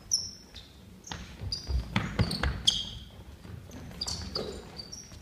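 Basketball being bounced on a hardwood gym floor amid the short, high squeaks of sneakers and the thuds of players' feet. The impacts are busiest from about one to three seconds in.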